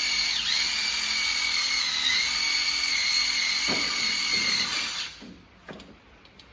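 High-speed power grinding tool fitted with a grinding bit, whining steadily on rusty steel and dipping in pitch twice as it bites under load. It shuts off about five seconds in, followed by a few light clicks.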